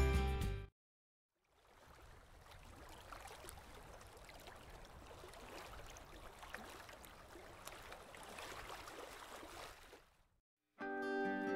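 Faint trickling, gurgling water, an even wash with small crackles. It starts and stops abruptly between two stretches of guitar music.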